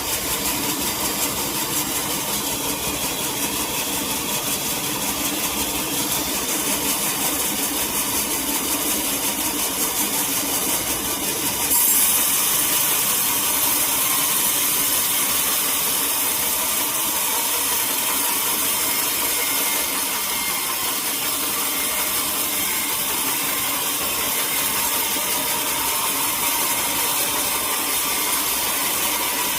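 Sawmill machinery running steadily as a saw cuts a teak log. About twelve seconds in the sound suddenly turns louder and hissier and stays that way.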